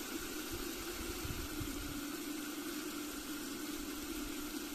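Small 3D-printed Pelton hydro generator running on a water jet from a hose, with the Pelton wheel turning a NEMA17 stepper motor as a generator: a steady rush of water with a steady low tone under it.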